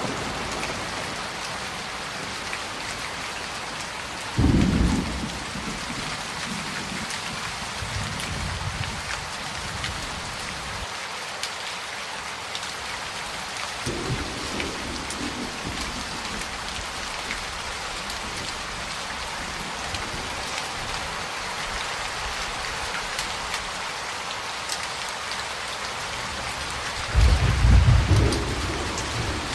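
Steady heavy rain with thunder rumbling: a short loud clap about four seconds in, softer rumbles in the middle, and the loudest, longest peal near the end.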